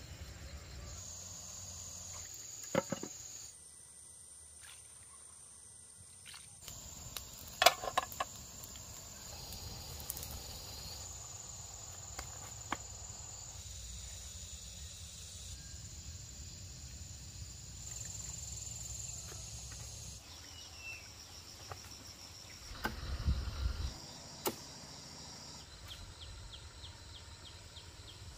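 Insects droning in steady high-pitched tones that shift abruptly at several cuts, over a low wind rumble on the microphone, with a few scattered sharp knocks and rustles.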